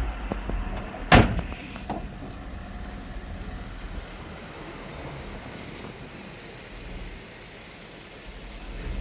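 A car door slams shut about a second in, followed by a low steady background rumble.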